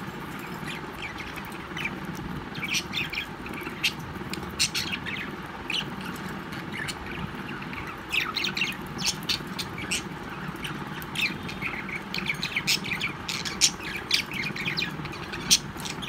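Several budgerigars chirping and chattering in short, scattered bursts, busier in the second half.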